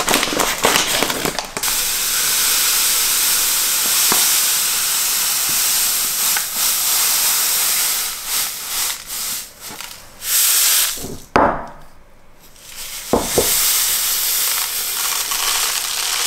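Fine dry grains pouring from a paper bag into a large Bormioli Quattro Stagioni glass jar: a steady hissing rush. It stops briefly with a couple of knocks about two-thirds through, then the pour resumes.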